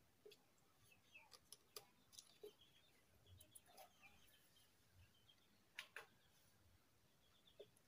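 Near silence with faint clicks and taps from a ribbon-cable connector being plugged into a front-panel circuit board and the board being set down. The loudest is a pair of clicks about six seconds in. Faint bird chirps are also heard.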